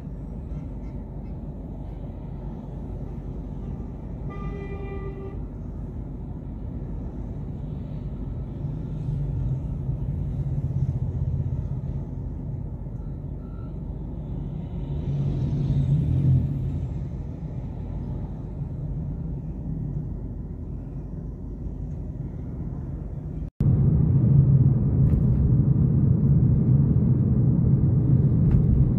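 Traffic noise from inside a car: steady engine and road rumble, with a car horn sounding once for about a second, about four seconds in. The noise swells twice, then after a break near the end it is louder and steadier, as of driving at speed.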